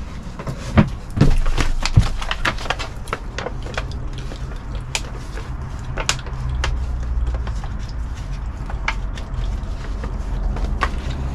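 Paper envelope being handled and sealed by mouth: a string of small sharp paper clicks and rustles, thickest in the first few seconds, over a low steady background rumble.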